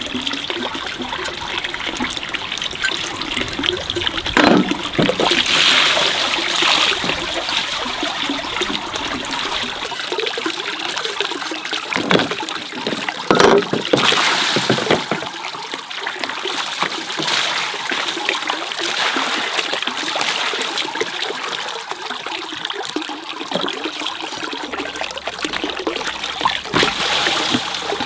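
Water running and trickling steadily, with a few brief splashes.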